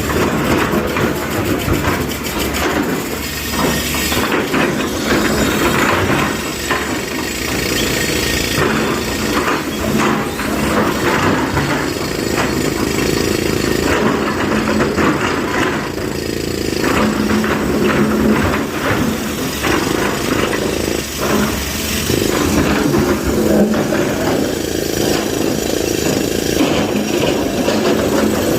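Diesel engine of heavy earth-moving machinery running steadily, with repeated knocks and clanks throughout.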